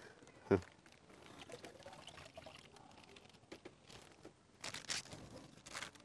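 Water poured from a plastic bag into a tank of water, coming in short trickles and splashes, with a brief thump about half a second in.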